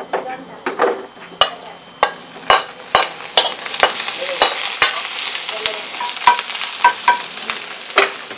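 Meat stir-frying in a pan over a gas flame: a metal spatula clacks against the pan about twice a second while the food sizzles, the sizzle building about three seconds in.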